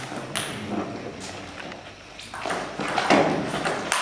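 Table tennis ball clicking off paddles and the table: a few scattered taps, then a quicker run of hits in the second half as a rally gets going.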